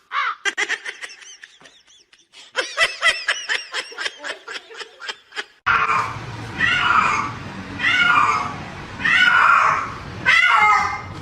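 A quick run of short, high, giggle-like calls, about four or five a second, that stops abruptly about halfway through. Then a cat meows four times, each meow falling in pitch, over a steady background hiss.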